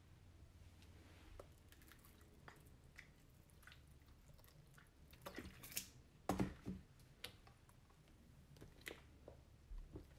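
Silicone spatula stirring fluffy slime in a glass dish: faint sticky squishing and crackling, with louder wet squelches about five to seven seconds in.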